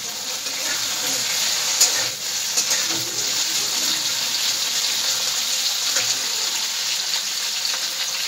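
Drumstick (moringa) pods and potato pieces sizzling steadily in hot oil in a kadhai, with a few light clicks of a metal spatula against the pan.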